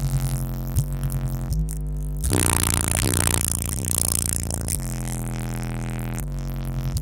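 Bass-heavy electronic music played through a car audio subwoofer whose voice coil is rubbing, the sign of a damaged sub. Deep steady bass notes with a pulsing beat, and a harsh scratchy rasp a couple of seconds in that lasts about two seconds.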